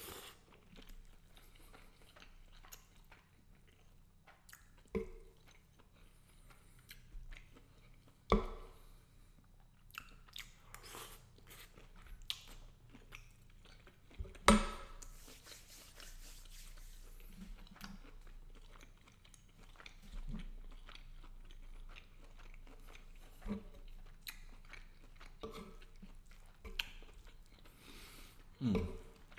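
Close-miked chewing of garlic butter shrimp and angel hair pasta, with many small wet clicks and two louder, sharper knocks about 8 and 14 seconds in.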